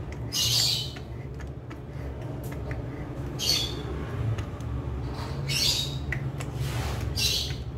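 Wall-mounted kitchen tap being screwed by hand into its seal-taped, brass-threaded wall fitting, the threads giving four short raspy squeaks as it is turned. A steady low hum runs underneath.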